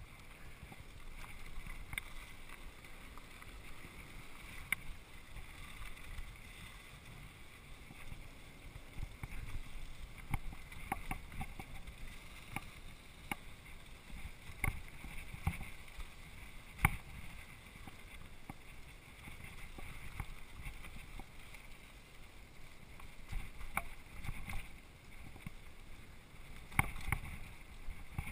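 Mountain bike descending a dirt singletrack: a steady low rumble of tyres rolling over dirt and wind on the microphone, broken by frequent sharp clicks and rattles from the bike jolting over bumps, the loudest about seventeen seconds in.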